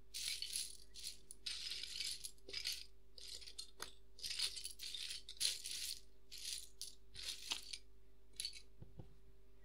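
Intro music: a shaker-like rattle swishing in short uneven bursts over a faint steady low drone.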